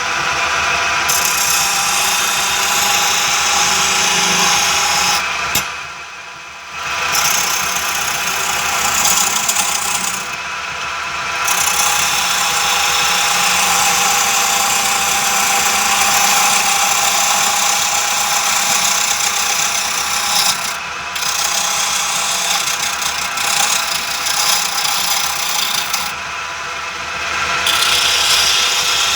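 Homemade wood lathe driven by a washing-machine motor, running with a steady hum while a hand-held homemade chisel scrapes the spinning wooden workpiece with a loud hiss. The scraping stops for a moment four times as the chisel is lifted off, leaving only the motor hum.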